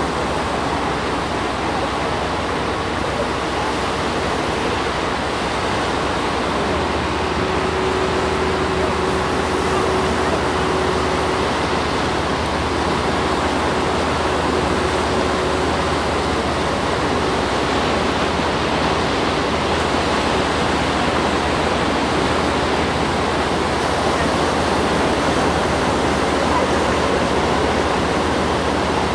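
Baltic surf washing in and breaking, a steady even rush, with a machine's faint low hum underneath and a thin steady whine from about seven to seventeen seconds in.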